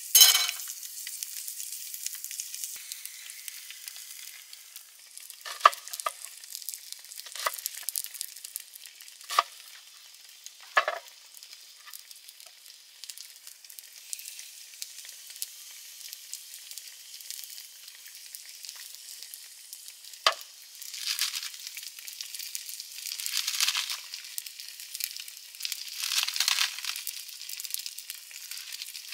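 Food sizzling in a hot pan with a steady hiss. Several sharp ticks or pops come in the first half, and the sizzling swells louder three times in the second half.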